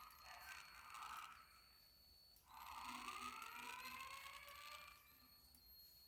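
Faint fire-alarm speaker sounding a rising, siren-like evacuation tone as part of a recorded fire alarm message.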